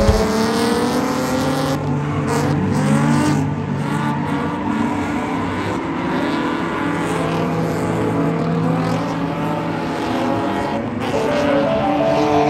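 BMW E36 drift car's engine revving as it slides, its pitch rising and falling over the first few seconds, then holding steadier.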